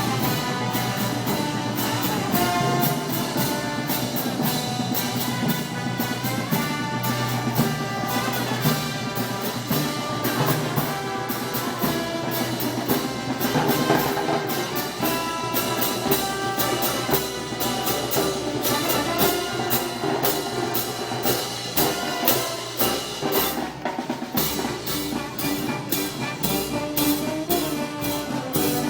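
Brass band playing Moros y Cristianos festival music: trumpets and trombones over drums with a steady beat.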